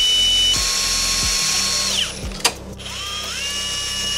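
Hilti SF 4-A22 cordless drill drilling through a metal distribution board: a steady motor whine that drops a step about half a second in and winds down around two seconds in. A sharp click follows, then the motor spins back up, rising in pitch near the end.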